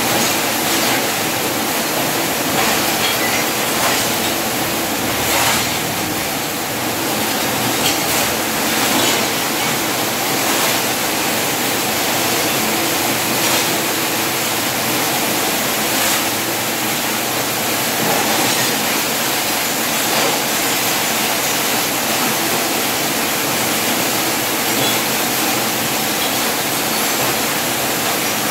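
Electric arc welding on a steel gate frame: the arc gives a loud, steady, dense hiss with no break.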